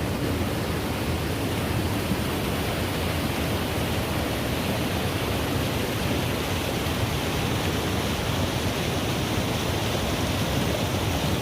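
Steady, even rush of fast-flowing mountain water.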